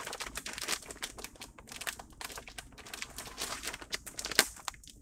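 Plastic bag of shredded cheese crinkling as it is handled, with irregular rustling throughout and one sharp click about four seconds in.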